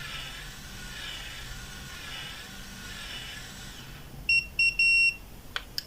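Automatic curling iron running with a faint whir that swells about once a second, then stopping and giving three beeps, two short and one longer, the signal that the curl is done. A couple of light clicks follow near the end.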